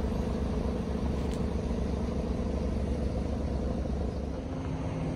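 Scania K124 IB bus engine running with a steady low rumble; a faint steady hum comes in a little after four seconds.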